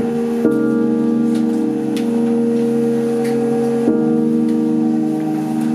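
Music: a keyboard plays held chords that do not fade, changing chord about half a second in and again near four seconds.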